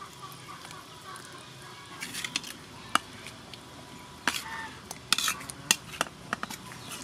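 Metal ladle clinking against a metal bowl and an aluminium cooking pot as raw fish pieces are scraped into the simmering soup: a scatter of sharp clinks starting about two seconds in, thickest in the second half.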